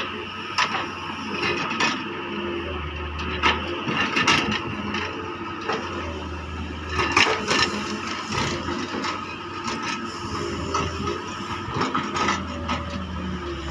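Doosan DX140 wheeled excavator's diesel engine running under varying load, louder in spells as the hydraulics work. The bucket digging a trench in soil makes repeated sharp clanks and knocks.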